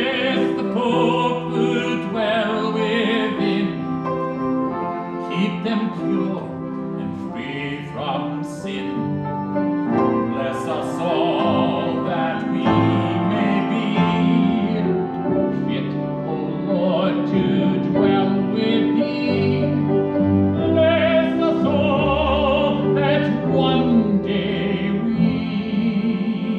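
A trained solo voice singing a classical-style piece with strong vibrato, over sustained keyboard accompaniment.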